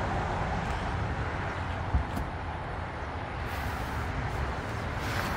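Steady rumble of road traffic, with one short knock about two seconds in.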